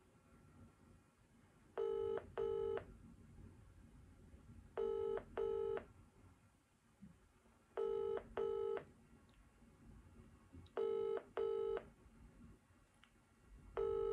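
Telephone ringback tone of an outgoing call, heard from the phone: a double ring, two short beeps close together, repeating about every three seconds. Five double rings sound, and a sixth starts near the end; the call has not yet been answered.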